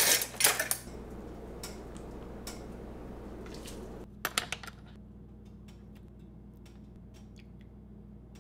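Kitchen clatter of dishes and utensils as a ramen bowl is assembled. A burst of clattering comes in the first second, then light clinks and taps of chopsticks and a spoon against a ceramic bowl and a plastic tub. A steady hiss runs under the first half and drops away about four seconds in.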